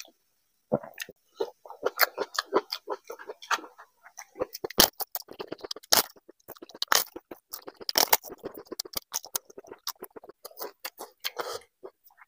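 Close-miked chewing and wet mouth sounds of a man eating khichdi by hand, with a few sharp crunches from bites of fried papad around the middle.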